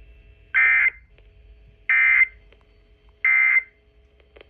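Emergency Alert System end-of-message signal: three short, identical bursts of SAME digital data tones, each a brief high buzzy warble, about 1.3 seconds apart, marking the end of the alert.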